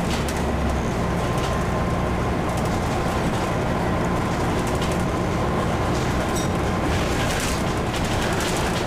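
Scania N94UD double-decker bus heard from inside the passenger saloon: the diesel engine and drivetrain running under way, with a faint steady whine and intermittent rattling of the interior fittings. The low engine note shifts about a second in.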